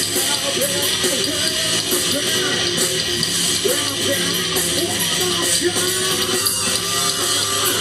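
Live rock band playing loud, continuous music with electric guitar to the fore.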